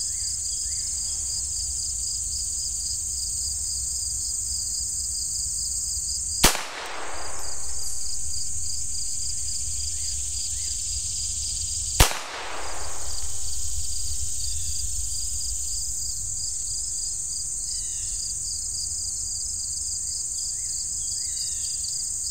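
Two single shots from a Ruger Standard .22 rimfire pistol, each a sharp crack, about five and a half seconds apart. A steady chorus of insects trills behind them.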